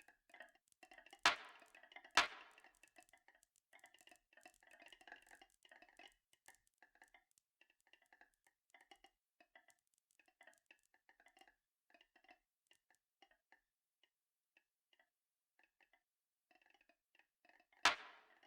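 Marbles rolling and rattling along a marble run, with two sharp clacks near the start and another near the end. Between them the rattle thins out into faint, scattered ticks.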